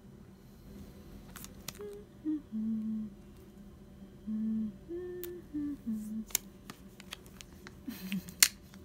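A person softly humming a string of short, held notes, with several sharp clicks and taps from hands handling a phone box.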